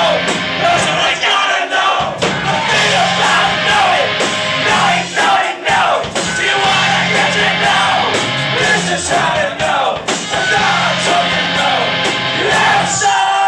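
Live rock band playing loudly with vocals over guitars and drums; the music stops abruptly near the end.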